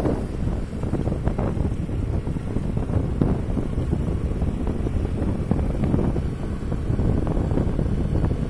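Wind buffeting the microphone while moving at road speed, an irregular low rumble with vehicle and road noise underneath.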